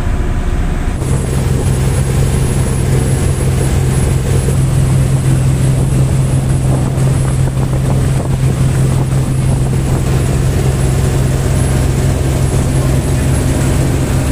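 Passenger speedboat running at speed: a steady engine drone under the rush of wind and churning wake water. The engine note shifts about a second in, then holds even.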